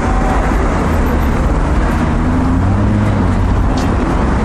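Steady city street noise: road traffic running, with passers-by talking faintly in the background.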